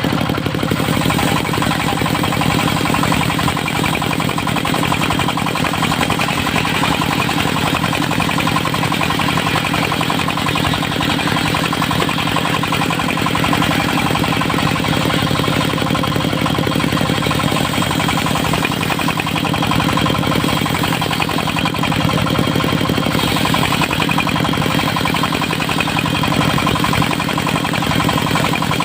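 Engine of a portable circular-saw sawmill running steadily with a fast, even beat. A brighter, higher sound joins it about 23 seconds in.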